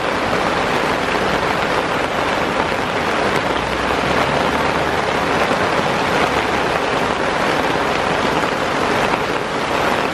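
Heavy downpour: rain falling hard and steadily, an even dense hiss with no let-up.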